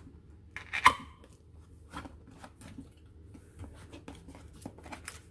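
Cardboard radio box being opened by hand: a sharp click about a second in as the flap comes free, then light scattered rustling and ticking of cardboard and paper as the contents are handled.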